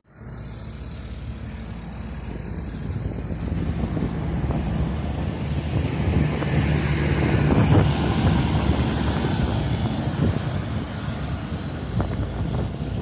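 A motor vehicle engine running steadily with a low rumble, mixed with wind noise on the microphone. The whole sound swells to its loudest about two-thirds of the way through, then eases slightly.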